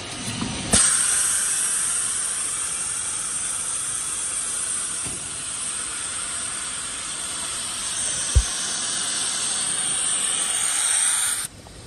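Steady hiss of compressed air escaping from the forming machine's pneumatic system, starting abruptly about a second in and cutting off sharply near the end. A single low thump is heard about eight seconds in.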